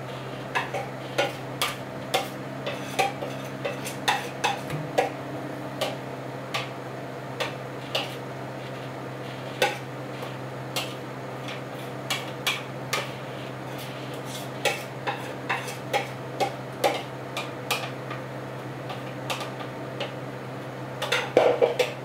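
Spoon clinking against a glass mixing bowl as a thick mixture is stirred, in irregular light taps, with a quick run of louder clatter near the end. A steady low hum runs underneath.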